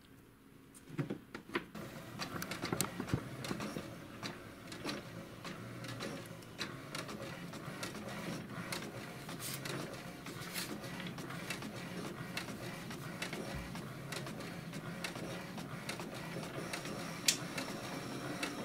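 HP DeskJet 2130 inkjet printer starting up about a second in, then feeding paper and printing a colour page: the print carriage runs back and forth with a steady motor hum and frequent clicks.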